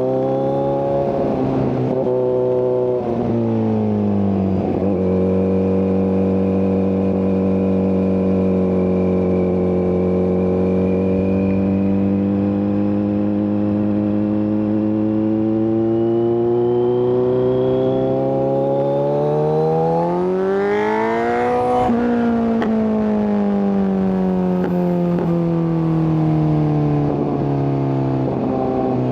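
Kawasaki Z900 inline-four engine through an SC-Project exhaust with no catalytic converter, heard from the rider's seat. It holds a steady pitch while cruising, then revs up for a few seconds about two-thirds of the way in and drops off sharply. After that the pitch falls away gradually, and it picks up again near the end.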